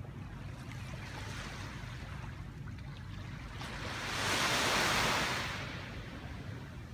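Small waves washing onto a sandy beach: a soft wash swells up about four seconds in and fades away by about six seconds, over a steady low rumble.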